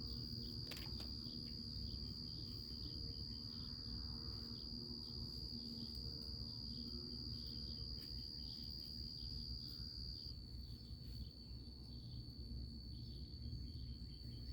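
Crickets trilling, a steady high-pitched unbroken note.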